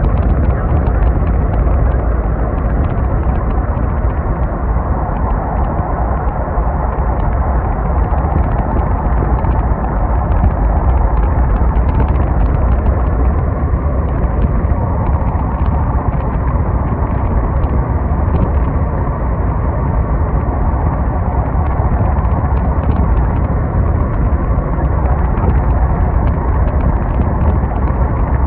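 Strong wind buffeting the microphone: a loud, steady, deep rumble that carries on without a break.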